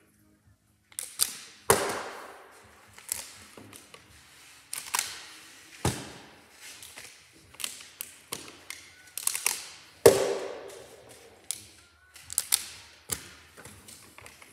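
Partly filled plastic water bottles being flipped and landing on a wooden tabletop: a run of thuds and knocks, about one a second, the loudest about two seconds in and again about ten seconds in.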